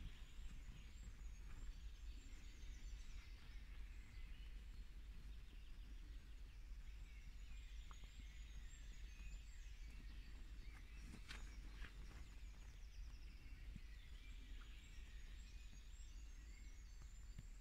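Quiet forest ambience with faint, very high-pitched songbird phrases recurring a few times, some softer chirps in between, and a few brief soft clicks.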